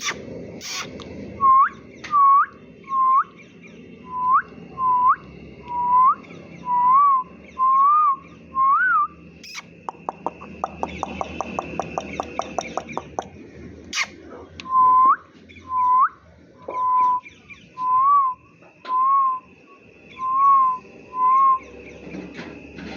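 A series of about seventeen short, clear whistled notes, each a quick rising hook or a wavering up-and-down note, in two runs with a pause in the middle. Between the runs comes a quick train of rapid clicks lasting about three seconds.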